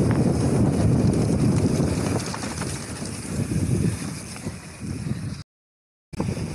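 Wind buffeting an action camera's microphone and mountain bike tyres rumbling over a dirt trail during a descent, with scattered small knocks from the bike. The rumble eases a little, then cuts out to silence for under a second near the end and resumes.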